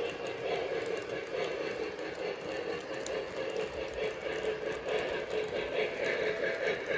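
Lionel O gauge model trains, an LIRR M7 electric commuter car and a Camelback steam locomotive, running side by side on three-rail track, giving a steady running noise of motors and wheels.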